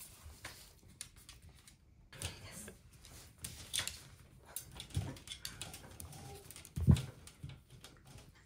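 A Shetland sheepdog tugging at a plush toy through the bars of a pet pen on a wood floor: scattered clicks, knocks and scuffles, with one louder thump late on.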